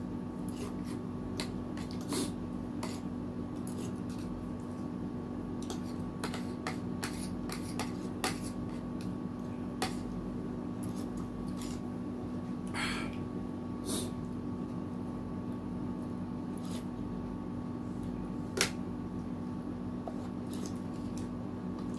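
Metal spoons and forks clinking and scraping against ceramic plates and a soup bowl while eating, in scattered irregular clicks, over a steady low hum.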